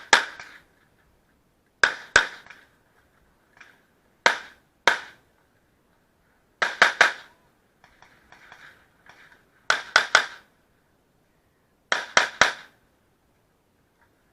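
Handgun shots fired in quick pairs and triples, a group every two to three seconds, about a dozen shots in all, typical of a shooter engaging targets on an IDPA stage.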